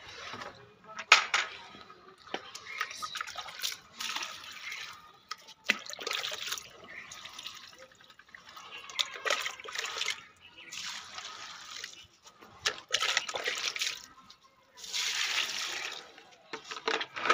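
Water poured from a plastic mug onto the soil of potted plants, in a series of short separate splashing pours one after another.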